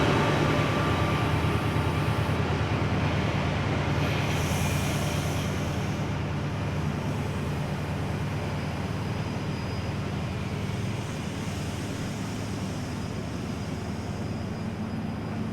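Diesel train running with a steady low engine drone under rumbling noise, slowly growing quieter.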